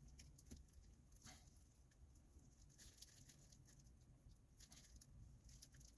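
Faint, scattered light scratches and ticks of a small metal pick working against a fishing reel's parts, prying out the little oil-holding sponge that keeps the bearing lubricated.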